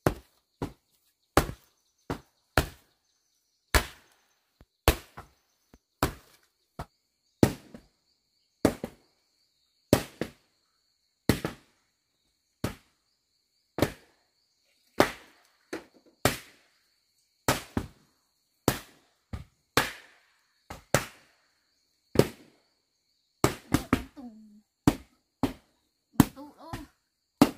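A flat wooden board slapped down again and again onto damp packed earth, tamping the mud floor flat. The dull thuds come roughly once a second, sometimes two in quick succession.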